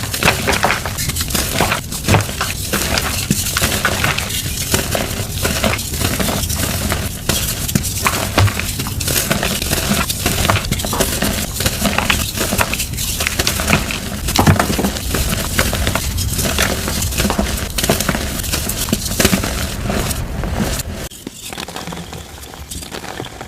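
Blocks of dyed gym chalk being crushed and crumbled, a dense run of crisp crunching crackles that turns quieter for the last couple of seconds.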